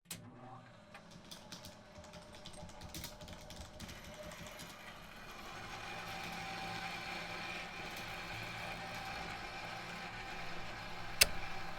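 A small machine running with a steady whine over several seconds, after a stretch of light scattered clicks, with one sharp click near the end.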